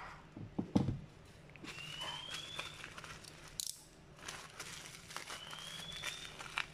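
Plastic bubble-wrap mailer package rustling and crinkling as it is handled, with a couple of light knocks on a wooden desk about a second in.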